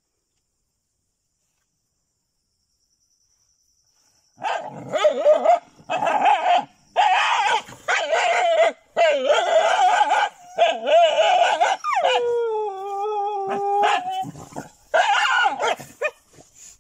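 Silence for about four seconds, then a dog barking and yelping in a string of short cries about a second apart. One longer howl drops in pitch and holds for about two seconds.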